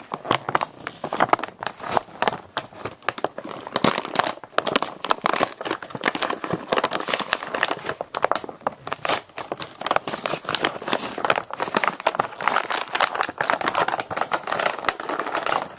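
A toy package being pried open by hand, its plastic window and cardboard crinkling and crackling in a dense run of irregular crackles.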